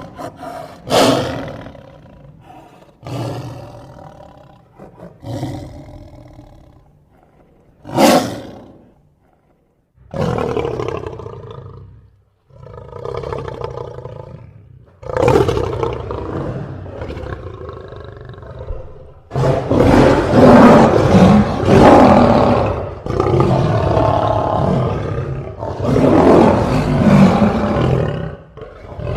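Lion roaring repeatedly: short separate roars over the first ten seconds, then longer roars, and loud, nearly unbroken roaring from about twenty seconds in.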